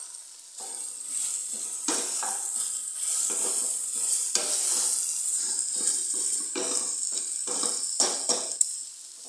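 Goat meat and chopped tomatoes sizzling in a stainless steel pot as a wooden spoon stirs them, scraping against the pot about once a second. The cooking water has boiled off, so the meat is frying in the dry pot.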